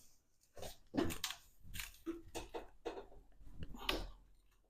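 Irregular light metallic clicks, knocks and scrapes as a homemade sheet-metal brake bends 14-gauge steel sheet in small deflections and the sheet is shifted in the jaws.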